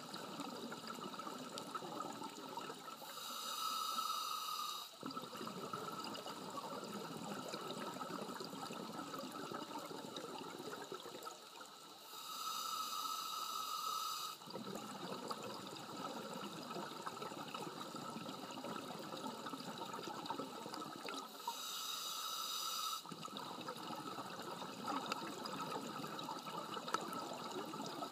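Scuba diver breathing through a regulator underwater. A hissing inhale of about two seconds comes three times, each followed by a long crackling gurgle of exhaled bubbles.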